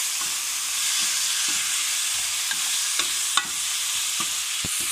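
Chopped tomatoes, green chilies and ginger sizzling steadily with onions and spices in hot mustard oil in a kadhai while a ladle stirs them. The ladle knocks sharply against the pan a few times in the second half.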